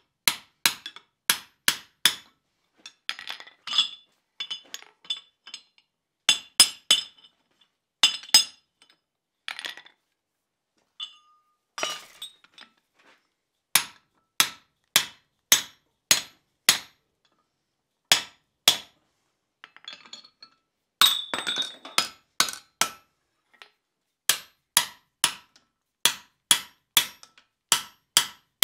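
Hand hammer driving a square drift through a punched hole in red-hot iron bar on the anvil, sizing the square hole. Runs of ringing steel-on-steel blows at about two a second, broken by short pauses and lighter clinks.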